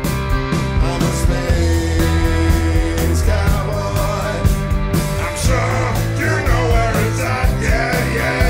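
Live rock band playing: electric guitar, electric bass and drums, with drum hits marking a steady beat.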